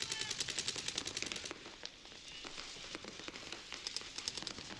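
Paintball markers firing in rapid strings of pops: a dense run of shots for about the first second and a half, then scattered single shots and another quick burst near the end.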